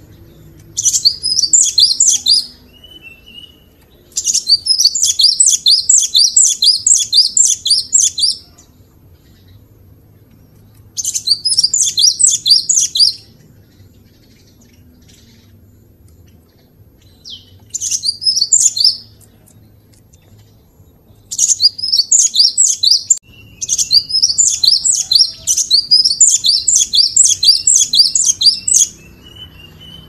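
Cinereous tit (gelatik batu / wingko) singing: six bursts of rapid, high repeated notes, each lasting one to four seconds, with short pauses between them.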